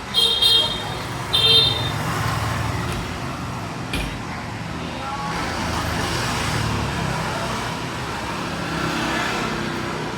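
Road traffic noise, steady and rumbling, with two short horn beeps in the first two seconds and a brief click about four seconds in.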